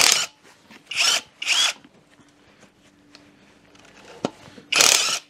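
Impact gun spinning off crusty engine-bracket bolts in short bursts: one at the start, two close together about a second in, and a longer one near the end. A single sharp click comes just before the last burst.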